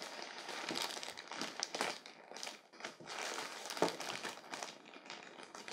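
Plastic zip-lock bag crinkling with irregular crackles as it is handled and pulled at along its seal.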